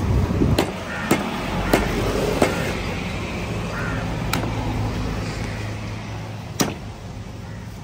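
A large curved knife chopping through fish onto a wooden block: about six sharp chops at uneven intervals, over a low steady engine-like hum.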